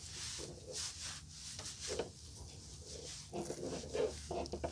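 Soft, irregular rubbing of a gloved hand and applicator over a glossy black ABS plastic grille trim piece as ceramic coating is worked into it.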